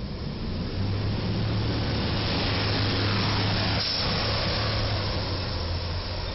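Heavy road vehicles passing close by on a wet road, a city bus with a box truck just behind it: a steady low diesel engine drone under tyre hiss. It swells to its loudest around the middle and eases off near the end.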